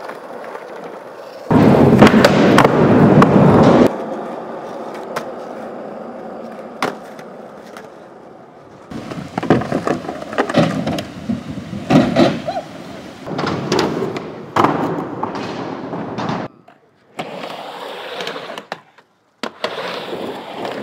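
Skateboard riding: wheels rolling over concrete and ramps, broken by sharp clacks of the board popping, landing and slapping down. The loudest stretch of rolling lasts about two seconds near the start, and the sound breaks off abruptly a few times.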